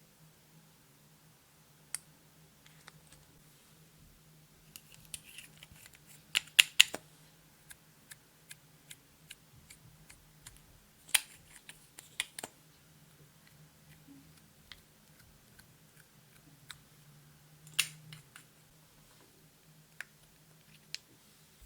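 Clear slime being handled and mixed with makeup and glitter, giving scattered sharp clicks and pops. The clicks are busiest around a third of the way in, again about halfway, and once more near the end, over a faint low hum.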